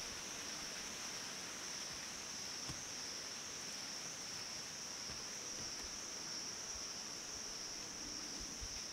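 Steady, high-pitched drone of insects in the surrounding forest, unbroken and unchanging.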